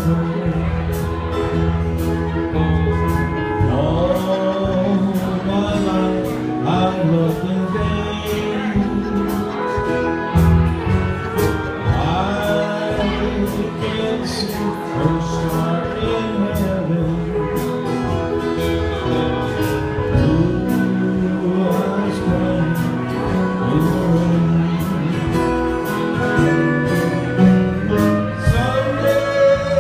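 Live classic country band playing a slow ballad, with sliding notes over a steady beat: guitars, pedal steel guitar, bass, keyboard and drums.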